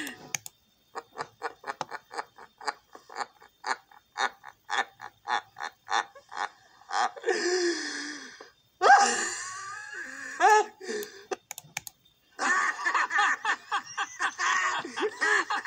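Computer keyboard typing in quick, even keystrokes, then a man's laughter played back from a video, then, from about twelve seconds in, a cartoon clip's soundtrack playing continuously.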